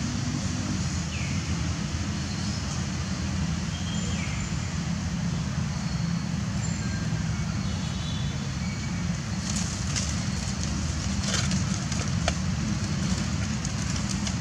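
Steady low outdoor rumble, with a few faint, short high chirps and a brief run of clicks about ten seconds in.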